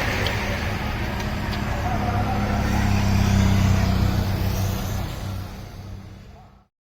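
A motor vehicle running with a steady low drone. It swells about three seconds in, then fades out to silence near the end.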